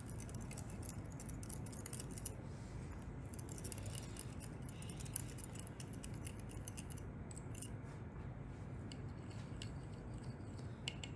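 Small spoon stirring a powder-and-water candy mix in a small glass cup: faint, rapid ticking and scraping against the glass.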